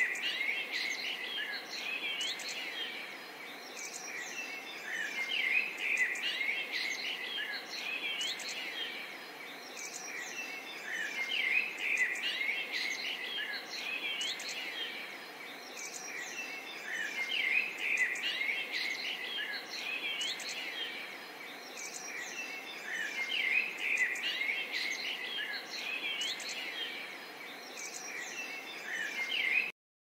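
A chorus of many small birds chirping and calling at once: quick overlapping chirps and short whistled glides that swell and fade about every six seconds.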